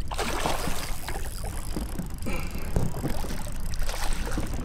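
Wind rumbling on the microphone and small waves lapping and slapping against the hull of a bass boat.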